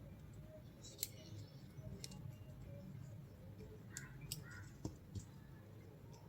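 A few separate sharp clicks and a low knock over a steady low hum.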